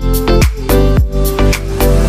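Background dance music with a steady, fast beat.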